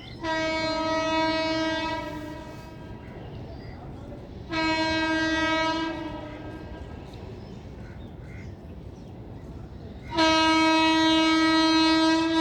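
WAG-9 electric locomotive's horn sounding three times. The first two blasts last about a second and a half each and sag slightly in pitch as they fade. A third, louder and longer blast starts about ten seconds in and is still going at the end.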